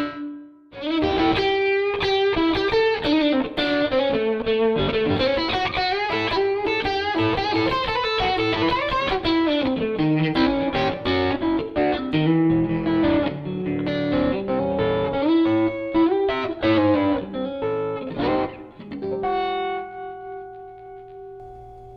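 Stratocaster electric guitar played through a Flex15 single-ended amp into a 2x12 cabinet, on the amp's second channel. It plays a blues lead of quick single-note runs and ends on a held chord that rings out and fades.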